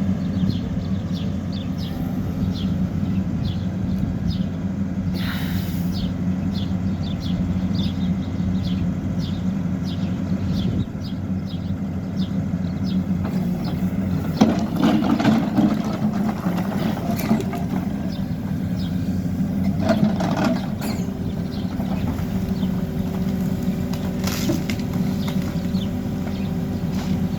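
Hidromek backhoe loader's diesel engine running steadily under work. Clattering bursts of rubble come about halfway through and again a little later.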